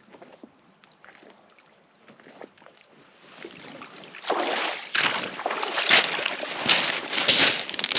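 Pebbles crunching and rattling on a shingle beach: faint scattered clicks at first, then louder, irregular crunches from about four seconds in.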